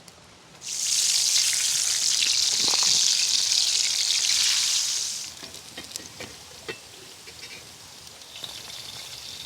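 Food sizzling in hot oil in a pan. A loud sizzle starts suddenly about a second in, lasts about four seconds, then drops to a quieter sizzle with scattered pops.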